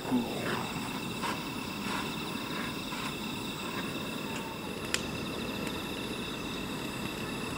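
Crickets chirping in a steady, pulsing trill over a low, steady rush, as a wood fire is lit in a metal fire pit with a gas torch. A few faint crackles and one sharp click about five seconds in.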